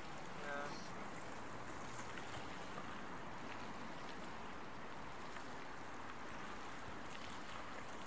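Steady rush of wind and sea water alongside a boat, with a brief pitched call about half a second in.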